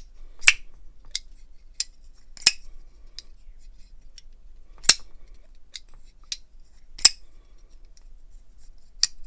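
EMP EDC Nymble v3 pocket knife being flipped open and shut, its blade snapping into place with sharp metallic clicks, the loudest about every two seconds and fainter ticks between; its pivot has just been cleaned and lubed.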